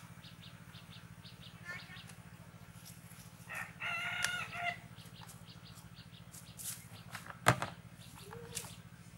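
A rooster crows once, a call of a little over a second midway through, with small birds chirping and a steady low hum behind it. Near the end a single sharp knock as the red plastic bucket is set down on the ground.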